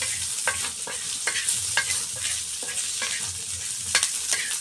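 Onions frying in a tava: a steady sizzle, with a spatula scraping and clicking against the pan about twice a second as they are stirred.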